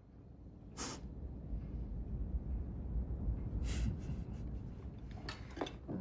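A man breathes out sharply through his nose twice, short scoffing snorts about a second in and again near four seconds, over a low rumble that swells in the middle. Near the end come a few light clicks of cutlery against a tin plate.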